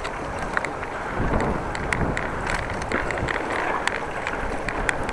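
Wind buffeting the microphone of a camera on a moving bicycle: a steady rumbling rush, with scattered small clicks and rattles throughout.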